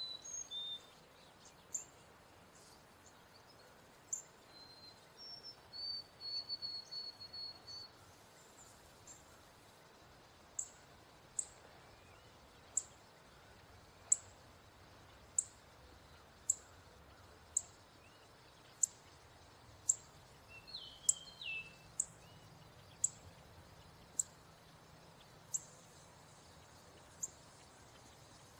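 Male northern cardinal giving sharp, high chip calls, one short note about every second, repeated steadily from about a third of the way in. A few other whistled bird notes come in the first eight seconds and briefly about two thirds through, over steady outdoor background noise.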